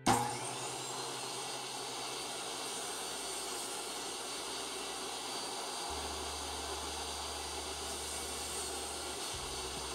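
Table saw running steadily with a crosscut sled cut through a board, the blade slicing off a short offcut.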